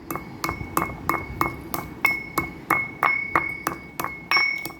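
Pestle pounding herbs and whole spices in a mortar, about three strokes a second, each with a short ringing clink.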